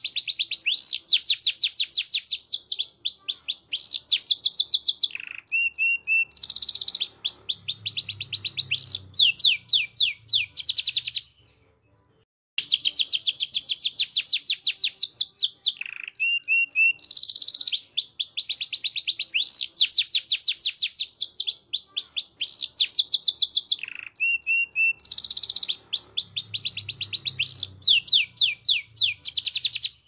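Domestic canary singing in long, fast rolls of rapidly repeated high notes, broken by short whistled phrases. The song stops for about a second and a half near the middle, then starts again.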